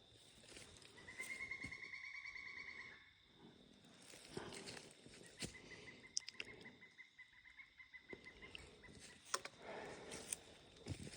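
Quiet footsteps crunching through dry leaves and brush, with a rapid trilling call heard twice: a clearer one about a second in lasting about two seconds, then a fainter, longer one a few seconds later.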